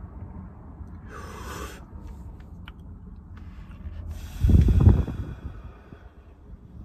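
A person exhaling a held hit from a vape pen. A short breathy hiss comes about a second in, then a harder exhale about four and a half seconds in that blows on the microphone with a low rumble and trails off as a hiss.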